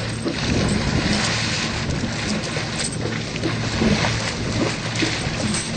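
Water splashing and churning as an elephant wades through it close by, with a faint steady low hum underneath.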